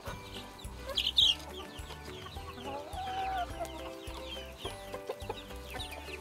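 Chicks peeping and hens clucking while they feed together, with one louder, sharp call about a second in.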